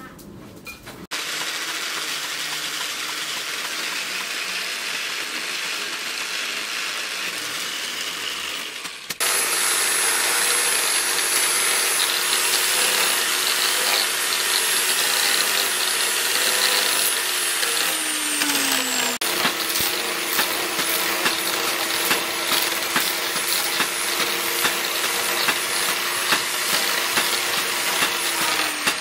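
Electric angle grinder with a sanding disc spinning at speed against a wooden sickle handle, a steady high motor whine. Its pitch drops twice, about halfway through and again near the end. Before the whine starts there are several seconds of steady rushing noise.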